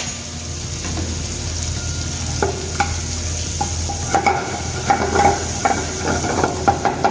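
Sliced onions and garlic sizzling in butter in a pan, with a utensil knocking and scraping against the pan as they are stirred, the knocks coming more often in the second half.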